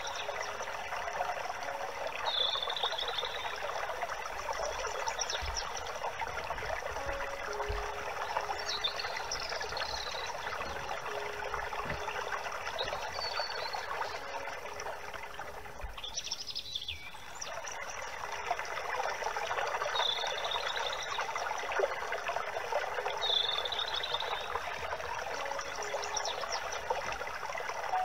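Birds chirping in short calls every few seconds over the steady rush of running water. The water sound briefly drops away a little past the middle.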